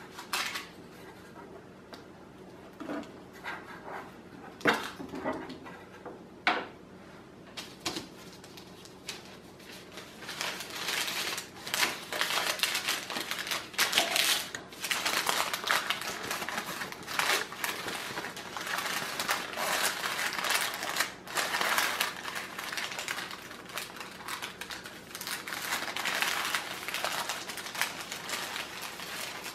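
Thin paper crinkling and rustling as candy pieces are folded into it by hand, dense and crackly through the second half. In the first few seconds, a few scattered clicks and scrapes of a metal spatula on a metal baking tray.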